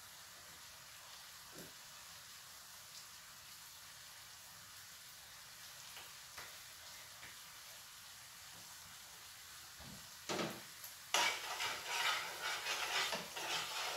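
Creamy blue cheese sauce sizzling faintly in a frying pan, then from about ten seconds in a utensil stirring and scraping through the sauce, much louder, with a run of clicks against the pan.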